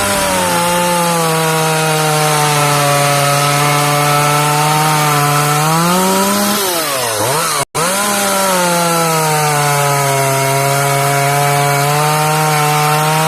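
Vintage Partner 5000 Plus two-stroke chainsaw cutting wood under load, its engine note held steady and low in the cut. Near the end of each cut the revs climb and then drop, and the sound cuts off abruptly about halfway through before the saw is heard cutting again.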